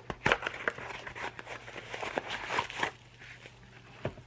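A white card mailer being torn open and a clear plastic packet pulled from it and crinkled: a quick run of sharp rips and crackles that eases off about three seconds in, with one click near the end.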